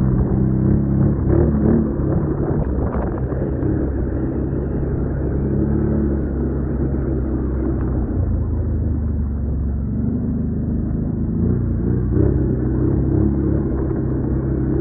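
Quad bike engine running while being ridden over a muddy, rutted track, its note rising and falling a few times with the throttle. There are a few sharp knocks in the first three seconds.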